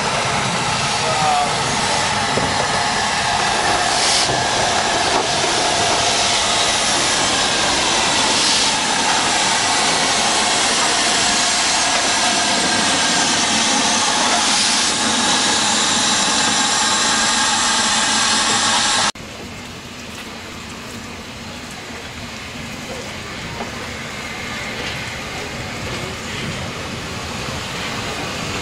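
Steam locomotive 44871, an LMS Black Five 4-6-0, giving off a loud, steady hiss of steam. About two-thirds of the way through the sound cuts abruptly to a second steam locomotive, Southern S15 No. 825, running in towards the platform, quieter and slowly growing louder.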